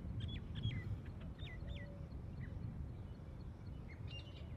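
Birds calling: a few short whistled chirps that drop and rise in the first two seconds, then a quick run of repeated chirps starting near the end, over a steady low rumble.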